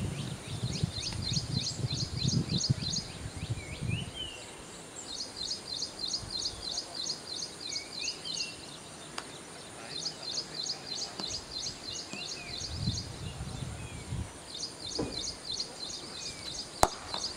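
A bird calling over and over, each bout a quick run of about eight or ten high chirps lasting a couple of seconds, repeating every four to five seconds. Near the end, a single sharp crack of a cricket bat hitting the ball.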